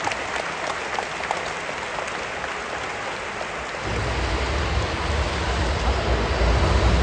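Stadium crowd applauding, a dense patter of many hands clapping. About four seconds in, a low rumble joins it and runs on under the clapping.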